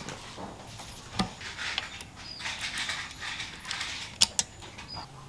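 Small metal clicks and light scraping from a hex driver working a set screw in an RC driveshaft's metal coupler: one click about a second in, scratchy turning noise, then two sharp clicks close together about four seconds in.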